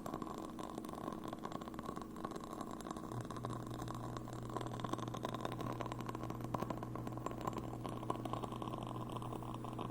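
Burning candles crackling: a dense run of small ticks and pops. A low steady hum joins about three seconds in.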